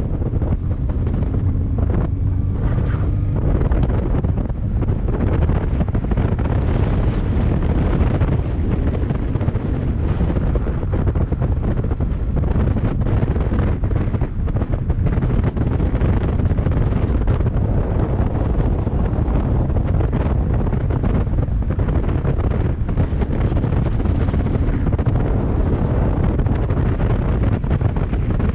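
Steady wind rush on the microphone of a motorcycle at road speed, with the bike's engine and road noise underneath.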